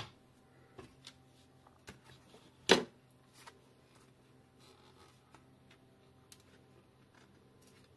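A few faint clicks and knocks, with one sharper click a little under three seconds in, over a faint steady hum: handling noise as the second car speaker is set up for a test.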